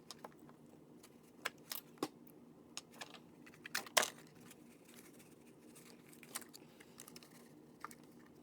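Scattered light clicks, scrapes and ticks of plastic cards being slid and levered under the adhesive-bonded front screen of a Samsung Galaxy S7 Edge to pry it off, with the sharpest click about four seconds in.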